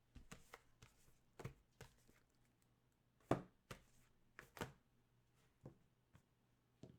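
Faint, scattered taps and knocks of objects being handled on a tabletop, about ten in all, the loudest a little over three seconds in.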